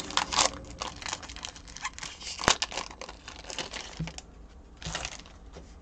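Trading card pack wrapper being torn open and crumpled in the hands: a run of irregular crinkles and rips, with one sharp snap about halfway through.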